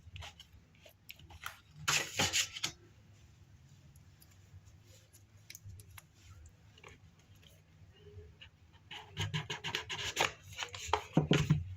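Paper and card being handled: rubbing and rustling, with a short burst about two seconds in and a quick run of small rustles and taps near the end.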